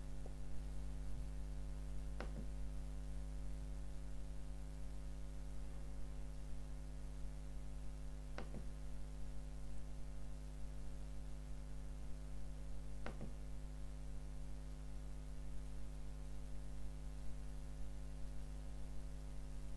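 Steady low electrical mains hum, with three faint clicks: about two seconds in, about eight seconds in and about thirteen seconds in.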